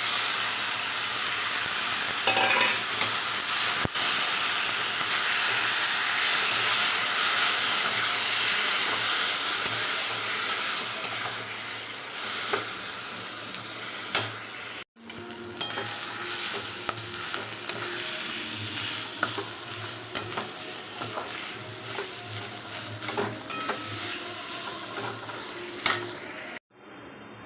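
Boiled taro leaves and grated coconut frying in oil in a pan and being stirred, a steady sizzle with sharp clicks and scrapes of the spatula against the pan. The sizzle is loudest in the first half, then quieter after a brief break, with more clicks.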